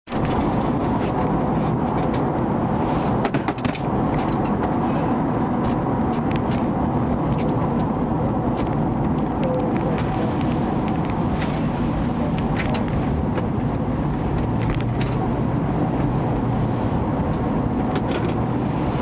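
Steady road and engine noise heard inside a police car's rear cabin as it drives, with scattered light clicks and rattles.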